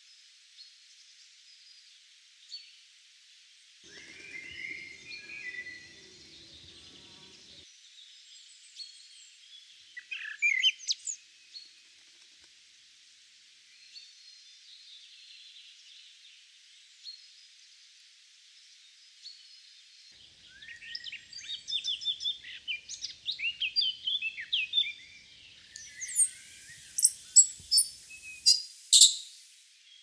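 Tui singing: phrases of ringing notes and quick pitch glides with pauses between them. The loudest comes about ten seconds in and again in a dense run late on, which ends in a burst of sharp clicks.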